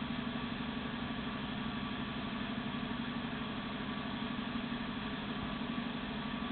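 Steady low mechanical hum with a fast flutter, like a motor or engine running at idle, unchanged throughout.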